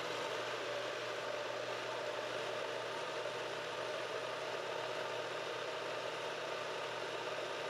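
NutriBullet personal blender's motor running steadily, pureeing a hot chile and tomato sauce into a smooth liquid.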